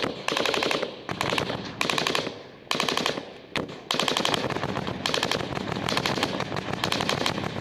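Automatic gunfire in a firefight: long runs of rapid shots, broken by short pauses about a second in and around three seconds in.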